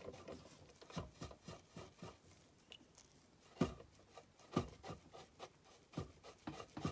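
Faint, irregular taps and scrubbing strokes of a paintbrush working brown weathering chalk onto a plastic model boxcar, with the firmest taps a little after the midpoint.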